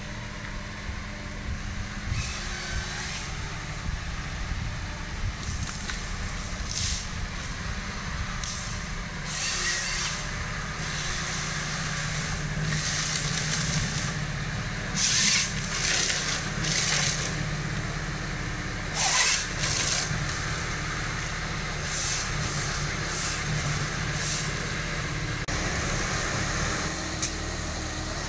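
Ponsse Bear forest harvester's diesel engine running steadily, with short hissing bursts several times, the loudest a little past the middle.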